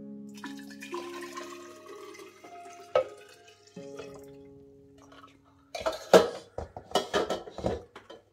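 Liquid pouring and dripping. From about six seconds in, a quick series of clinks and knocks from kitchenware being handled, over background music with held notes.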